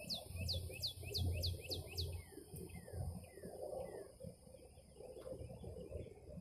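A bird singing a fast run of about seven high notes that each slide sharply downward, followed by a slower, lower series of falling notes.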